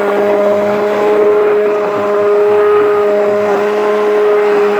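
Electric blender motor running at a steady, even-pitched whine while grinding chickpeas and tahini into a thick hummus paste.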